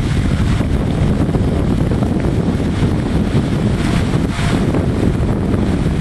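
Wind blowing across the microphone: a loud, steady rumble with no clear pauses.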